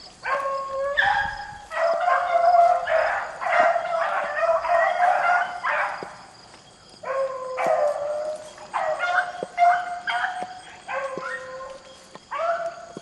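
Rabbit-hunting beagles baying in a run of drawn-out, repeated calls with a brief lull about halfway through. This is hound voice given while trailing a rabbit.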